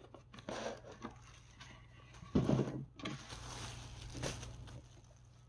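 Cardboard box and its packing being handled and opened: irregular rustling and scraping, with a short knock about two and a half seconds in and a longer sliding scrape after it.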